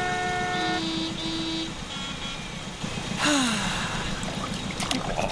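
Cartoon sound effects: a steady engine-like rumble, with a short run of held horn-like tones in the first second and a half. About three seconds in comes a noisy whoosh with a falling tone, and a few sharp clicks follow near the end.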